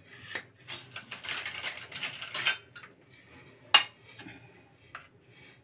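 Metal clattering and scraping as ghee is spooned into an open stovetop sandwich maker, with one sharp clink about two-thirds of the way through.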